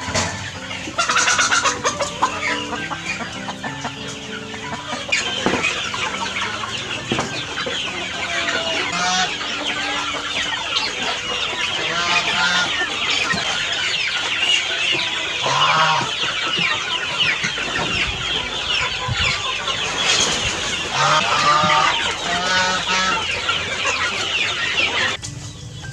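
A large flock of chickens clucking and calling all at once while feeding, many birds overlapping in a busy, continuous chatter. It cuts off suddenly shortly before the end.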